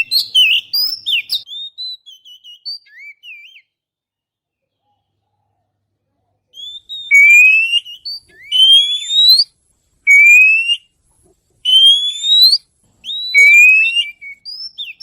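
Oriental magpie-robin singing. First comes a quick run of varied whistled notes, then a pause of about three seconds. After that come five loud, clear rising whistles, about a second and a half apart.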